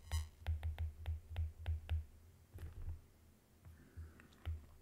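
Stylus clicking and tapping on a tablet's glass screen during handwriting. It is a quick, irregular run of light clicks with dull knocks that thins out after about two and a half seconds.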